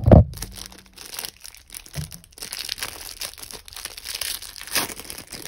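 Clear plastic packaging bag crinkling and rustling as fingers work it open, with a couple of loud knocks of handling right at the start.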